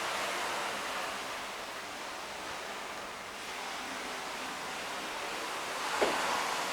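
Sea waves washing onto the shore, the surf swelling near the start and again about six seconds in.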